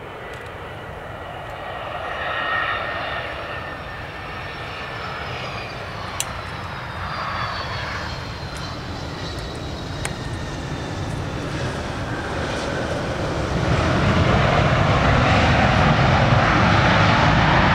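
Jet airliner landing: steady engine noise with a high whine that slowly falls in pitch, then the engine noise swells louder near the end as the jet rolls out along the runway.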